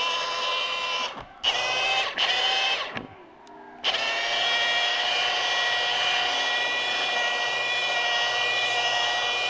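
Milwaukee cordless rotary polisher spinning a wool buffing pad with cutting compound on wet-sanded black paint, its motor whining. It is stopped and restarted three times in the first four seconds, the last pause lasting about a second, then it runs steadily.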